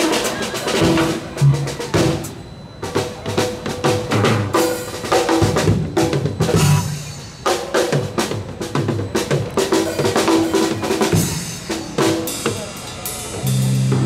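Drum kit and electric bass guitar improvising together: busy drumming with many sharp hits over short, repeated bass notes.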